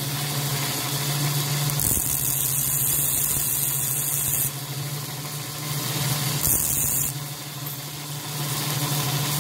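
Homemade cordless mini belt sander's small DC motor running steadily with its abrasive belt turning. A steel drill bit pressed against the belt makes a loud hissing grind for about two and a half seconds starting about two seconds in, then briefly again past the middle.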